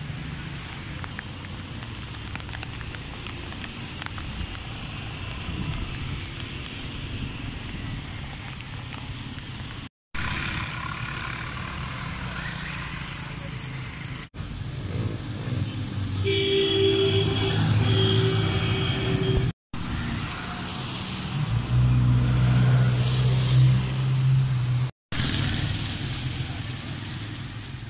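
Street traffic on wet roads: cars and motorcycles passing with engine noise and tyre hiss. The sound is cut into several clips with brief dropouts between them. A steady pitched tone sounds for a few seconds midway, and a louder low engine hum comes near the end.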